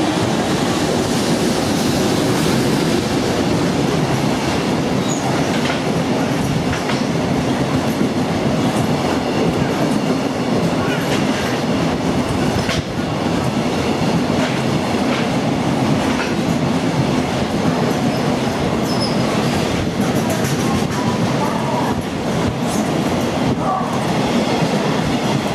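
A container freight train hauled by an EH500 electric locomotive passing through at steady speed: a loud, continuous running noise of the wagons on the rails, with scattered knocks.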